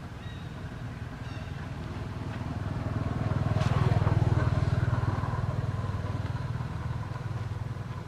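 Low engine rumble of a passing motor vehicle, swelling to its loudest about halfway through and then fading.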